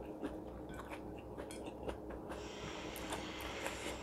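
Faint close-up eating sounds: soft chewing and small clicks of fingers working rice and fried green chilies on a plate, over a steady low hum, with a soft hiss coming in about halfway through.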